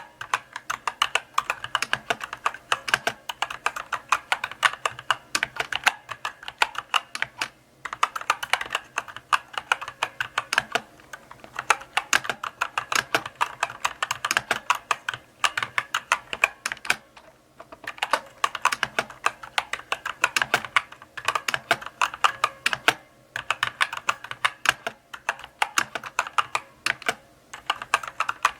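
Typing on a mechanical keyboard: a steady run of key clicks and clacks, several a second, in bursts broken by short pauses.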